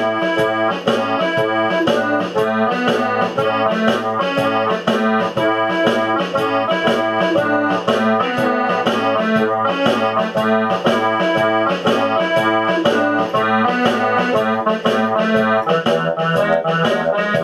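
Instrumental background music with a steady beat, led by keyboards.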